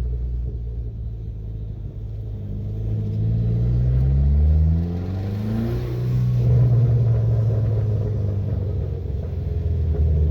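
Dodge Neon SRT-4's turbocharged 2.4-litre four-cylinder engine pulling as the car accelerates, its pitch rising over a few seconds, then running steadier at speed. The owner still hears a valvetrain tick in it after fitting new hydraulic lash adjusters.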